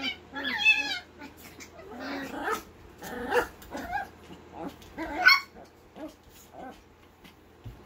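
Small dogs vocalizing in play: a run of short, wavering whines and yips, the loudest a rising call about five seconds in, with softer ones near the end.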